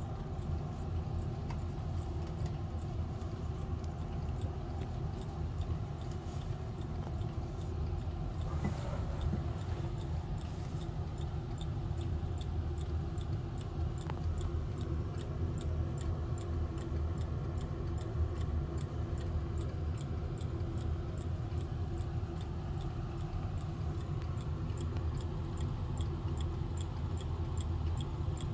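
Howard Miller 612-437 mantel clock's movement ticking steadily with evenly spaced ticks, over a steady low rumble.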